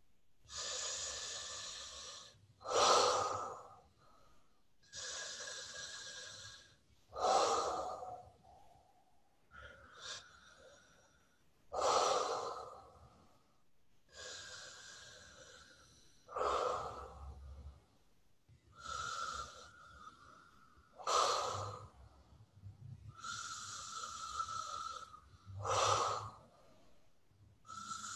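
A woman breathing hard through her nose into hands cupped over her face, a yoga breathing exercise: a long drawn breath then a shorter, louder, forceful one, repeating about every four to five seconds. A faint whistle rides on some of the breaths.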